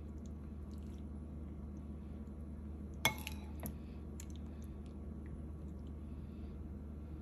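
Metal spoon clinking against a ceramic soup bowl: one sharp, ringing clink about three seconds in, then a few lighter taps, over a steady low hum.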